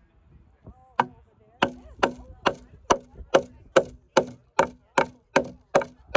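Claw hammer driving nails into a heavy wooden bracket: a steady run of about a dozen sharp blows, roughly two and a half a second, starting about a second in.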